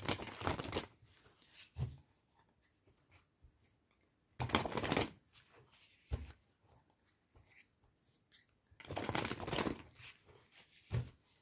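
A deck of tarot cards being shuffled by hand in three short bursts, with soft card handling in between; near the end the cards are set down and spread on a cloth mat.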